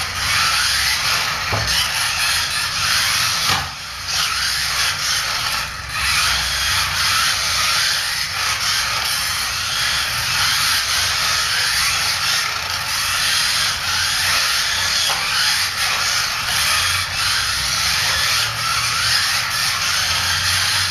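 Kyosho Mini-Z electric RC cars running laps: a steady high-pitched whir of their small motors and gears that keeps up throughout.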